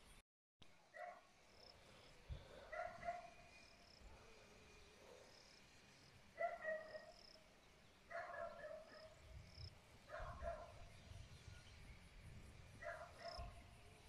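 A dog barking faintly in short bouts of one or two barks, every two to three seconds.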